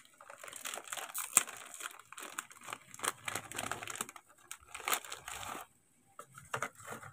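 Plastic wrapper of a packet of Hatari crackers crinkling as it is peeled open and handled, with many light clicks and rattles as stacks of crackers are pulled out, quietening briefly near the end.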